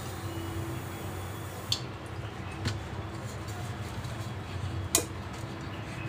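Handling sounds from cleaning a megaphone's volume-control potentiometer with WD-40: a faint hiss for the first second and a half or so, then a few sharp clicks, over a steady low hum. The pot is being cleaned because dust inside it made the megaphone crackle.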